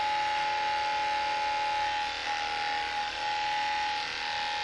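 Cordless electric dog clippers running with a steady whine while trimming the fur on a dog's hind paw.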